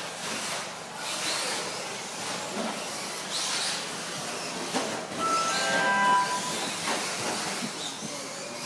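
Radio-controlled 4WD short course trucks racing on an indoor carpet track: a steady hiss of motors and tyres. About five to seven seconds in, a few short high whines at several pitches come through, the loudest part.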